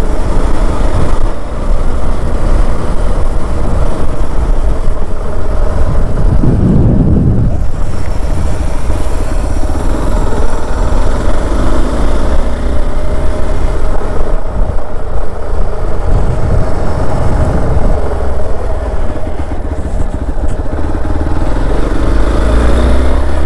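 Hero Xpulse 200 4V motorcycle running at riding speed, its single-cylinder engine under a steady rush of wind and road noise.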